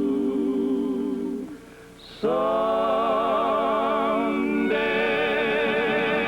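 A vocal group with accompaniment sings the final word of a slow, hymn-like song as one long held note. After a brief dip about two seconds in, the closing chord comes in and is held with vibrato, growing fuller near the end.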